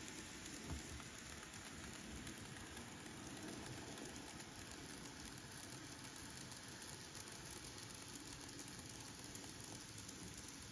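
Faint steady running noise of a model freight train rolling along the track: small wheels on the rails and a little motor.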